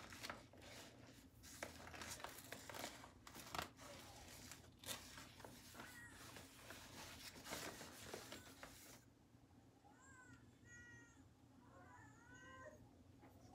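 Faint rustling and clicking as a blood-pressure cuff and stethoscope are handled, then from about nine seconds in a child crying faintly in the distance, a few short wavering cries.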